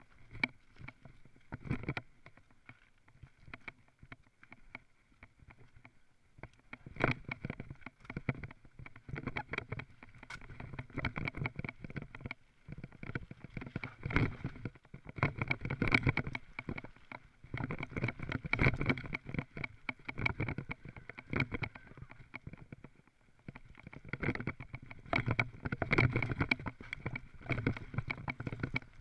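Mountain bike rattling and clattering down a rough dirt singletrack: tyres on loose dirt and stones, with quick knocks from the frame and chain, louder in bursts over the rougher stretches.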